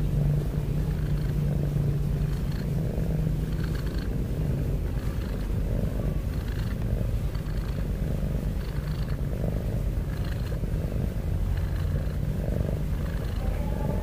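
Domestic tabby cat purring steadily as its head is stroked, a continuous low rumble with a soft breathy rasp recurring about every second or so.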